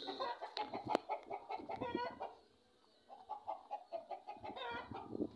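A black hen clucking in two quick runs of short repeated notes, with a brief pause between them a little before the middle.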